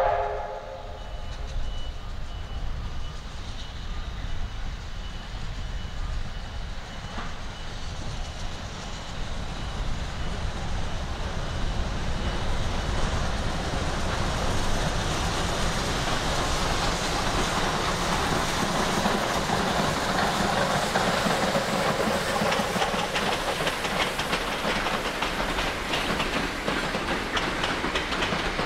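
A heritage passenger train approaching, growing steadily louder over about twenty seconds, then its carriages rolling onto a timber trestle bridge with the wheels clacking rhythmically near the end. A brief train whistle sounds at the very start.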